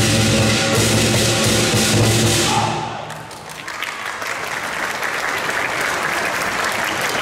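Lion dance percussion band of drum, cymbals and gong playing loudly, stopping about three seconds in, followed by audience applause.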